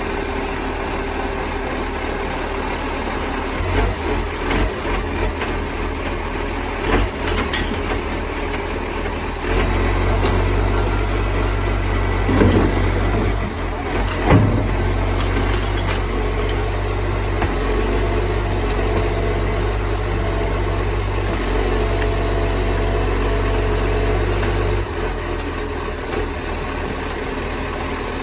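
Garbage truck's diesel engine running loud through a massive exhaust leak, idling, then held at higher revs from about ten seconds in until a few seconds before the end. A few short knocks and bangs come in between.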